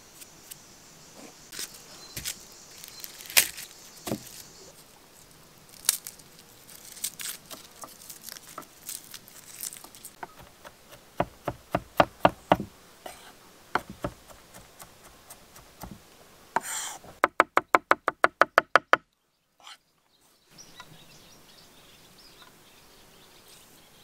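Scattered taps and knocks, then a fast, even run of chef's knife chops on a wooden cutting board, about eight a second, that stops abruptly.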